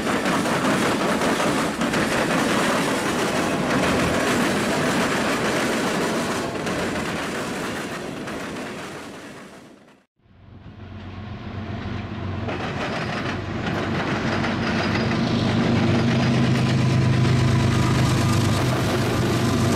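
A freight train rolls past close by, first its trailing diesel locomotives and then freight cars running on the rails. The sound fades out to nothing about halfway through. A second freight train's diesel locomotives then come in with a deep steady engine drone that grows louder toward the end.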